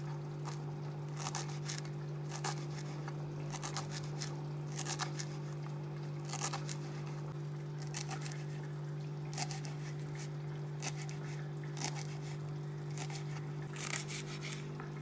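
Knife finely chopping fresh coriander on a cutting board: irregular sharp cuts about once a second, some in quick pairs, over a steady low hum.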